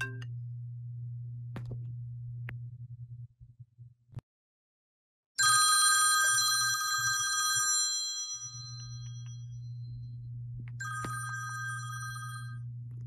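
Smartphone alarm ringing with a bell-like ringtone. It starts suddenly and loud about five seconds in and fades, then rings again and stops shortly before the end as the cat paws the screen, switching the alarm off.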